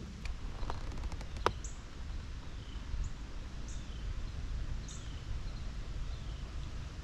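A bird calling again and again, each call a short high note falling to a lower slurred note, about once a second. Under it runs a steady low rumble, and a few light clicks come in the first second and a half.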